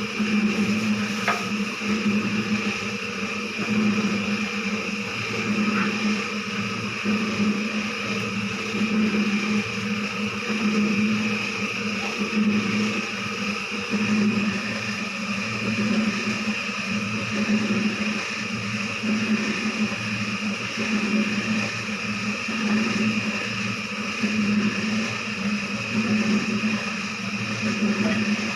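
An electric motor running steadily with a low hum and a few higher whining tones, swelling and fading about every two seconds.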